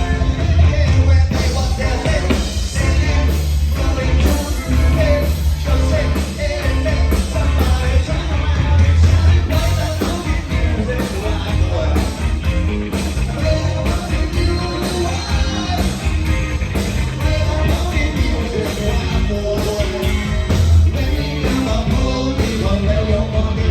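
Live rock band playing loud and steady, a singer over a heavy bass line, guitar and drums.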